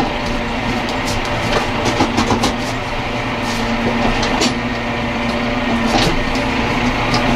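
Massey Ferguson 5711 tractor's diesel engine running steadily, heard from inside the cab, with scattered clanks and rattles from the front loader and bale grab as it carries a bale over the field.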